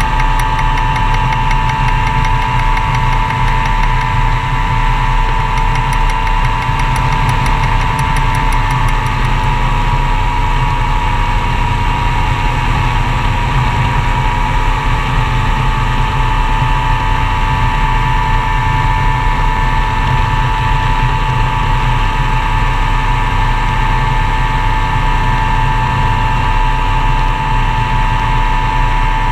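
Gyroplane engine and propeller running steadily, heard from on board with wind noise on the microphone.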